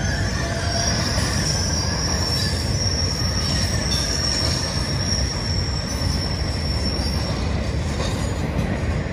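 Norfolk Southern rail train's flatcars, loaded with long track rail, rolling past, with a steady rumble of wheels on the rails. A steady high wheel squeal starts about a second in and fades out near the end.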